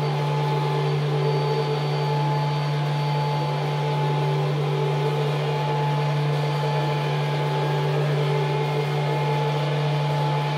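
Experimental ambient drone music: a strong low tone held without a break, with a few higher held tones and a steady hiss of noise layered over it, unchanging in level.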